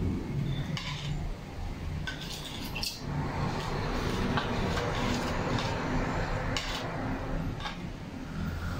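Metal spoon stirring liquid in a white ceramic bowl, clinking against its sides in scattered, irregular clinks over a steady background rush.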